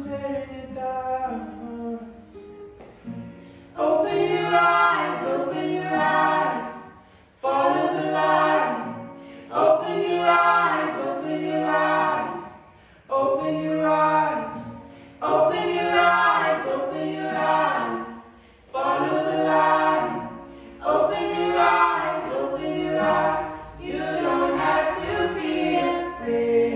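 Music: a choir singing in repeated phrases about two seconds long, with short breaks between them.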